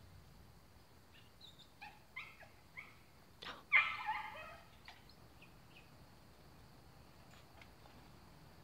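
Blue jay calls: a run of short, harsh notes, then one louder, longer harsh call just before four seconds in, followed by a few faint notes.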